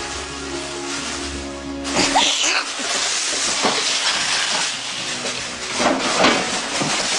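Background music with held, steady notes for about two seconds, then an abrupt cut to a louder, hissing noise with a few brief pitch glides.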